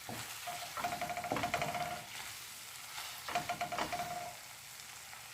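Pasta in tomato and garlic sauce sizzling in a pan while a utensil stirs and scrapes through it, in three bursts of stirring.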